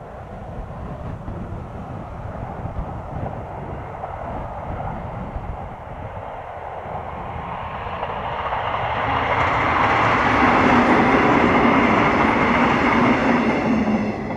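Nishitetsu 5000-series electric commuter train, two sets coupled, passing on a ballasted track: a faint rumble builds gradually, grows loud for about four seconds as the cars go by, then falls away quickly near the end.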